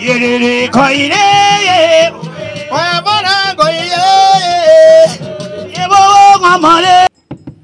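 Music: a solo voice singing long, sliding, wavering notes over an accompaniment. It cuts off suddenly near the end.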